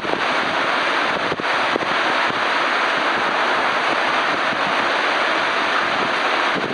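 Heavy monsoon rain pouring onto the sheet roof of a covered walkway, a loud, steady hiss.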